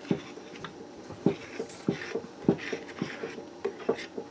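Metal spoon stirring baking mix and milk into a stiff dumpling dough in a ceramic bowl, with dull knocks and scrapes against the bowl at an uneven rate, about two a second.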